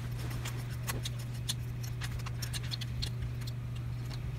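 Small irregular clicks and ticks of a metal thumbscrew being turned by hand through a 3D-printed plastic clamp, tightening it onto the tripod head. A steady low hum runs underneath.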